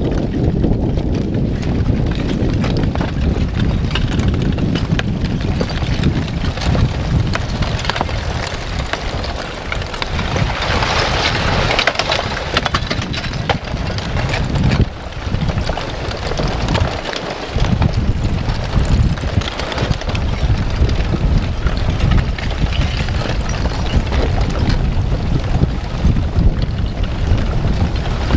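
Wind buffeting the microphone, with scattered clinks and crackles of cooling lava blocks shifting and tumbling at the front of an advancing aa lava flow. The crackling swells for a couple of seconds about eleven seconds in.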